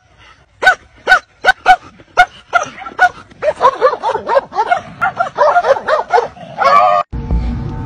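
Dogs barking in short, sharp barks. They come one at a time, about two a second, then turn faster and overlapping from about three and a half seconds in, as in a scuffle. They end in a longer held yelp that cuts off suddenly about seven seconds in.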